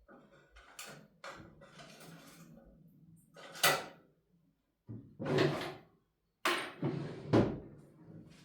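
Objects being handled: a string of irregular knocks and scraping rustles, the loudest about halfway through and again near the end.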